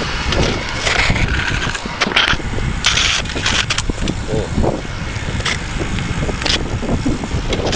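Bicycle in motion, heard from the rider: a steady low rumble of wind on the microphone, with irregular scraping and crunching bursts about once a second from the bike rolling over rough ground.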